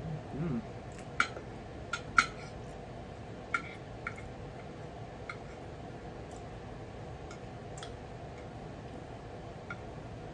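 A fork clicking and scraping against a ceramic plate: a scattering of sharp, light clinks, the loudest about two seconds in, over a steady faint hum. A brief low mouth sound comes right at the start.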